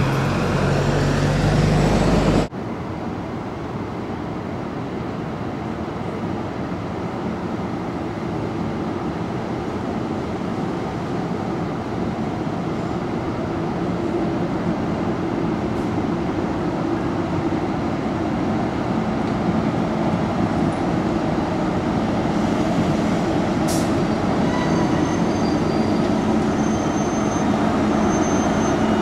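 Diesel locomotive running: a loud, low engine note for the first couple of seconds, then, after a sudden cut, a steady train rumble that slowly grows louder, with a few faint high-pitched tones near the end.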